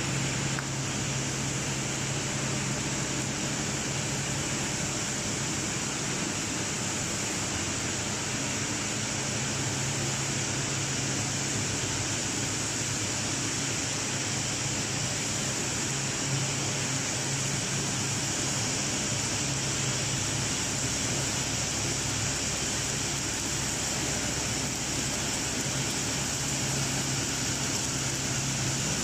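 Corrugated-board production line machinery running steadily: a constant low hum with an even high hiss over it.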